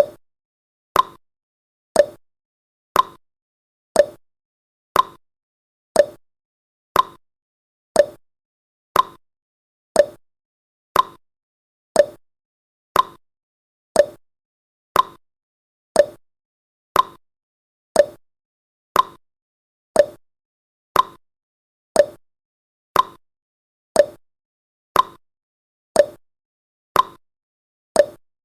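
Countdown timer's clock-tick sound effect: one short, sharp tick each second, evenly spaced, with silence between ticks.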